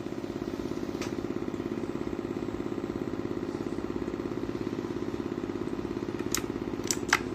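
A steady low hum pulsing rapidly, with a sharp click about a second in and three sharp clicks near the end.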